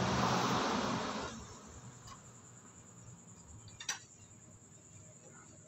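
A rush of noise that fades out after about a second, then a few sharp metal clicks, the loudest about four seconds in, from a socket wrench being set on the cylinder head cover bolts of a Yamaha Mio Sporty engine.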